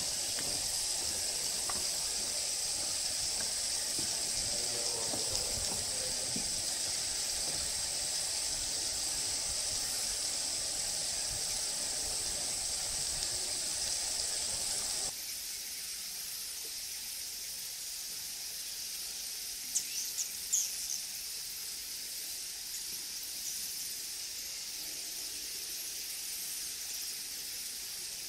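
Tropical forest ambience: a steady high-pitched hiss. About halfway through it changes abruptly and becomes quieter, and a few short high chirps come about two-thirds through.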